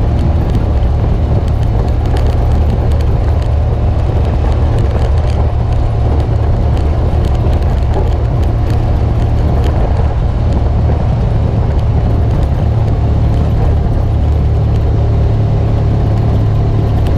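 Engine of a 2017 Polaris RZR 900 Trail side-by-side, a twin-cylinder, running steadily under way on a dirt track, heard from inside the open cab, with small scattered clicks from gravel under the tyres.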